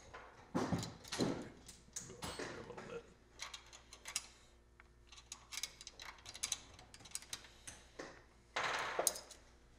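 Small open-end wrench clicking and scraping on the steel nut and lever as the nut is tightened, with locking pliers gripping the lever: light scattered metal clicks and short scrapes, and a longer scrape near the end.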